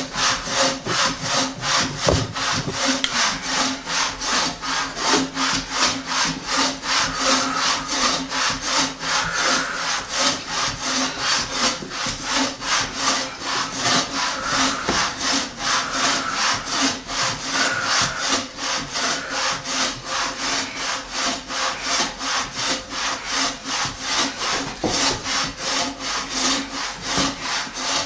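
Hand saw cutting into a wooden log, in steady back-and-forth strokes at about three a second.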